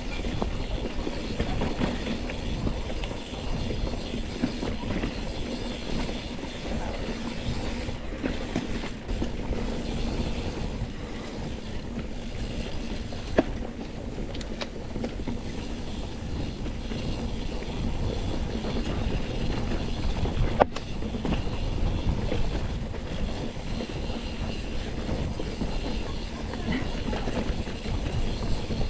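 Mountain bike ridden downhill on a rough dirt trail: a continuous rumble and rattle of tyres and bike. There are two sharp knocks, one near the middle and one about two-thirds through.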